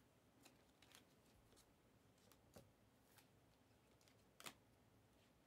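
Near silence with a few faint clicks and rustles of trading cards being handled, the clearest about four and a half seconds in.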